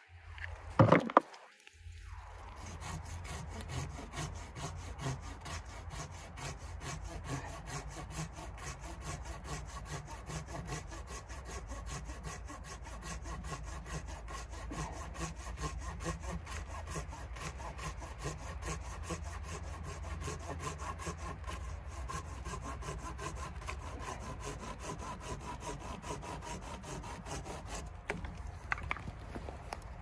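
Hand saw cutting through wood with steady, even back-and-forth strokes, stopping near the end. Two sharp knocks come just before the sawing starts.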